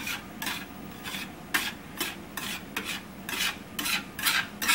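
Metal fork scraping and stirring a runny egg mixture around a stainless steel frying pan, in quick repeated strokes about three a second.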